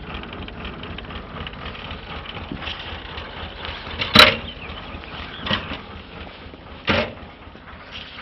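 Three sharp knocks over a steady background noise: the loudest about four seconds in, then two more roughly a second and a half apart.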